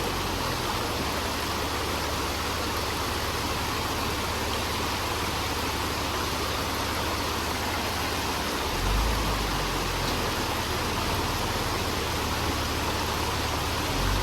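Off-road vehicle engine running low under a steady hiss, its rumble swelling briefly about nine seconds in.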